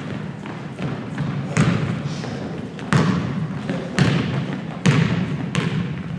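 A basketball bouncing on a hard gym floor, five echoing thumps about a second apart, over a low hum of crowd chatter.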